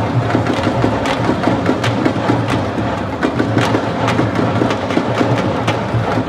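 Fast percussion drumming with many sharp, cracking strokes, typical of sabar drums at a Senegalese wrestling bout, over a dense steady background din.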